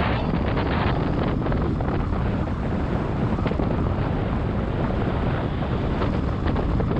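Wind buffeting the microphone in the open back of a moving pickup-truck taxi, a steady rush with vehicle noise underneath.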